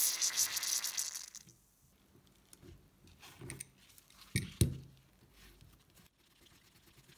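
Aerosol spray can hissing through a thin straw for about a second and a half, squirting foaming spray onto the old blowtorch's threaded brass fitting. Then gloved hands handle the metal torch tank with a few light knocks and clinks, the loudest a little before five seconds in.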